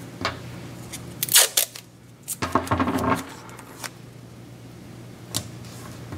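Masking tape being pulled off the roll and torn, then pressed onto paper: several short tearing rasps and light clicks and rustles, the longest rasp about a second in.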